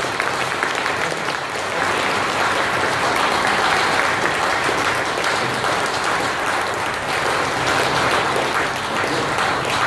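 Audience applauding steadily throughout.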